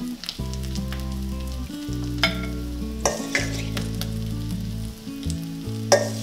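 A metal spoon clinks and scrapes against a stainless steel mixing bowl and a plate as salad is spooned out: a few sharp clinks, the loudest near the end. Under it, tuna cakes sizzle in a frying pan, and soft background music plays held chords.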